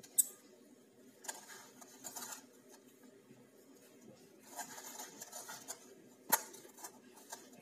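Hand mixing wheat flour and water into dough in a stainless steel bowl: irregular rubbing and scraping of hand and flour against the metal, with two sharp knocks on the bowl, one just after the start and one about six seconds in. A faint steady hum runs underneath.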